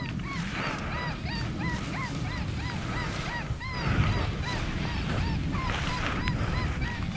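A rapid series of short, arching honking calls, about three a second, over a low rumble.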